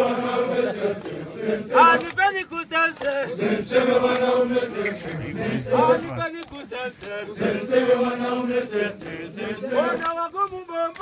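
Crowd of mountain porters singing a chanted welcome song together, with hand clapping.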